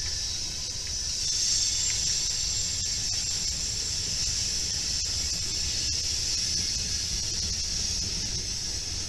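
Freight cars rolling slowly past, a low rumble under a steady, high-pitched hiss, with a few faint clicks.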